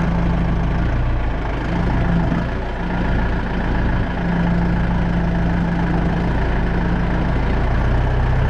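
Lucas portable swing-blade sawmill's engine running steadily while milling a blackbutt log: a loud, even drone whose pitch wavers slightly.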